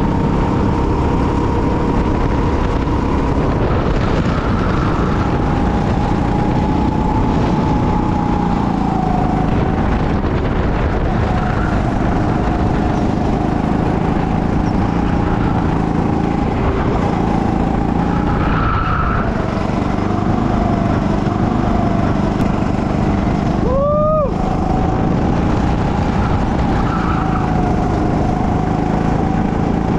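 Go-kart engine running hard at racing speed, its pitch wavering up and down with the corners. Once, late on, a brief rising squeal cuts through.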